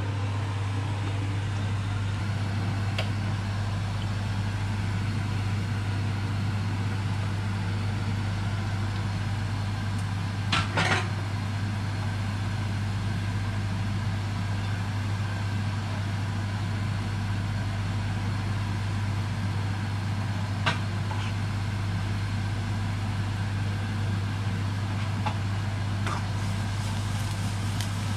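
Steady low electrical hum from a kitchen appliance, with a few faint clicks and a short clatter about ten seconds in.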